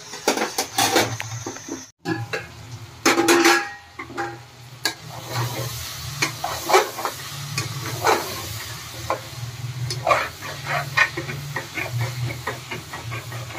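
A metal utensil scraping and stirring vegetables and spices frying in an aluminium pressure cooker, with irregular scrapes over a steady sizzle. The vegetables are in the last minute of being fried. The sound breaks off briefly about two seconds in.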